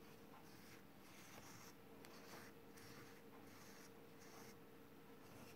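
Near silence, with faint soft rustling and rubbing coming and going: a hand handling and turning a ribbon-wrapped egg stand on a tabletop.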